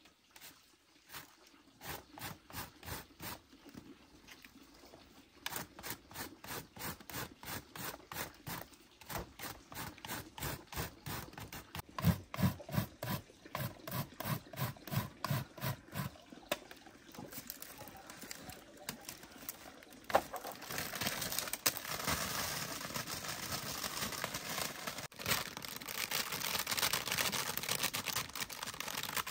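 Rhythmic scraping strokes, about four a second, some with a dull thud, giving way about two-thirds through to a steadier rustling noise.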